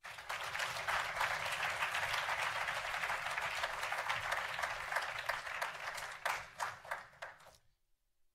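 Audience applauding, breaking into a few separate claps near the end before stopping about seven and a half seconds in.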